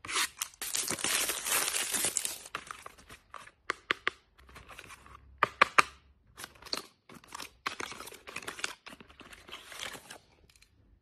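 Wrapping torn off a paperboard skincare box: a loud crinkling tear for the first two seconds or so. Then lighter rustles and sharp taps as the cardboard box is handled and its end flap pulled open.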